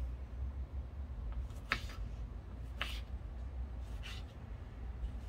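Kitchen knife cutting tomato on a wooden cutting board: three separate cuts about a second apart, over a steady low hum.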